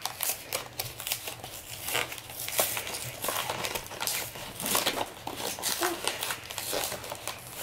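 Cardboard collector box and its plastic packaging crinkling and rustling as they are pried open by hand, in irregular crackles.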